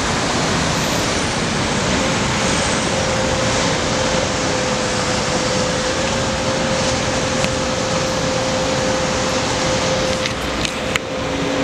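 Steady roar of city street traffic heard from high above the road, with a faint steady hum running through most of it. A few light knocks near the end as the camera is handled.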